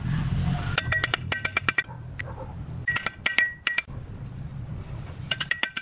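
Bricks being set on edge and tapped into place with a flat steel bricklayer's blade: three quick runs of sharp, ringing metal-on-brick clinks over a low background rumble.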